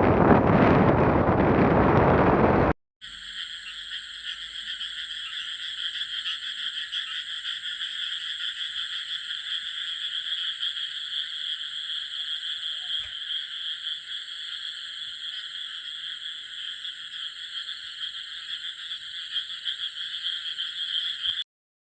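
Wind buffeting the microphone for the first few seconds, then, after a cut, a steady, dense chorus of frogs calling that stops abruptly near the end.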